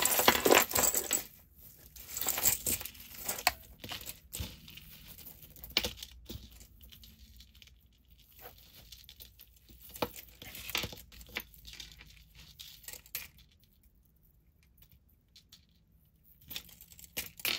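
Costume jewelry being handled: beads and metal chains clicking and clinking against each other and the tabletop as necklaces are picked out of a tangled pile, with some rustling. Busiest in the first few seconds, then sparser, going nearly quiet for a few seconds near the end.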